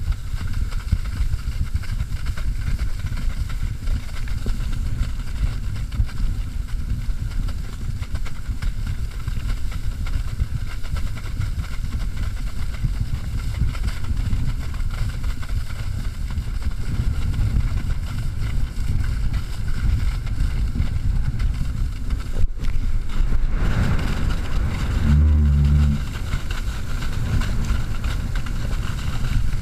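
Wind buffeting the action camera's microphone with a steady low rumble, over the hiss of a pair of water skis cutting through lake water as the skier is towed along. A brief low hum sounds about 25 seconds in.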